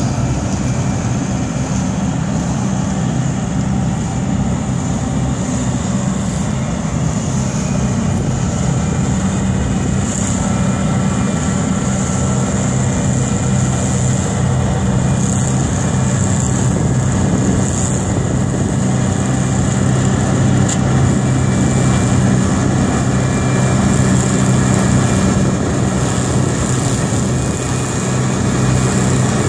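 Tractor engine and its PTO-driven OMARV TER 190 Extra grass mower running together, a steady loud drone with a high whine over it.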